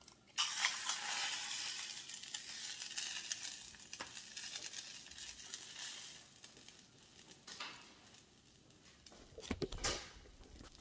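An egg dropped into hot oil in a stainless steel frying pan, sizzling: a sudden hiss about half a second in that fades slowly over several seconds. A few knocks near the end.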